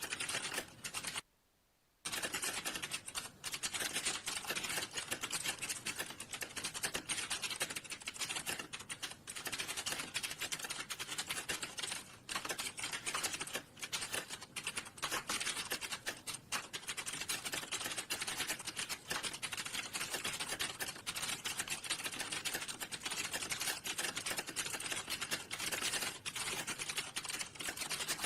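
Rapid, continuous typing on a computer keyboard, a fast run of key clicks that breaks off briefly about a second and a half in.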